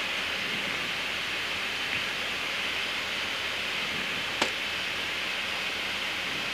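Steady rushing noise inside a Boeing 777 flight deck while the aircraft taxis on its running engines, with a single sharp click about four and a half seconds in.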